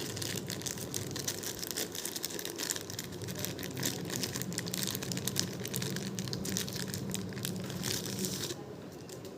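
Plastic packaging crinkling and crackling as a microphone package is unwrapped by hand, with some tearing; the handling stops about a second before the end.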